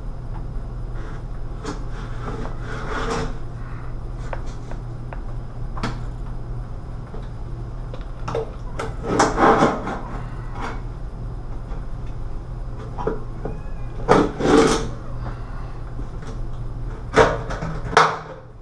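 A blade scraping and slicing through the caulk and paint seal around a recessed medicine cabinet's frame, in several short bursts of strokes, over a steady low hum. Near the end the cabinet box scrapes as it is worked loose from the wall opening.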